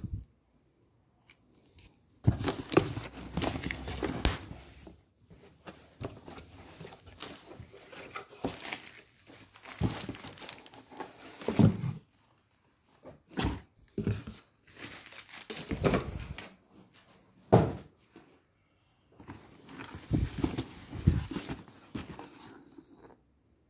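A cardboard shipping box being opened by hand: tape tearing, cardboard flaps and a cardboard insert scraping and rubbing, and plastic packing crinkling, in irregular bursts with short pauses.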